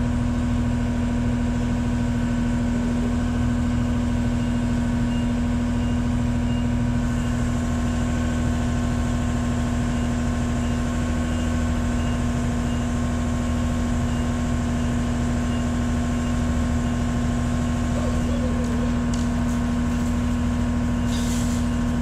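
Aerial boom lift's engine running steadily with a strong steady hum. For several seconds in the middle a faint regular beeping of a motion alarm comes through.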